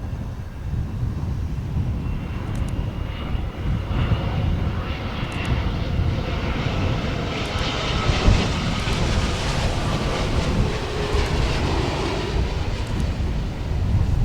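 Boeing 787 airliner on final approach, its jet engines whining and rumbling, growing louder as it nears and loudest about two-thirds of the way through.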